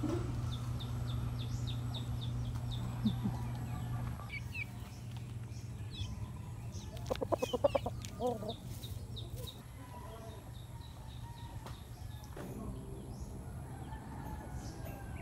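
Rooster clucking: a quick run of short notes about seven seconds in, over faint high bird chirps.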